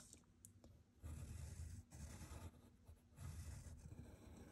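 Pencil drawing on paper: three faint stretches of scratchy sketching strokes.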